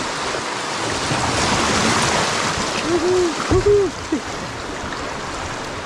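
River water rushing over a shallow rocky run as the canoe passes through, swelling about two seconds in. Three or four short hoot-like tones come about three seconds in.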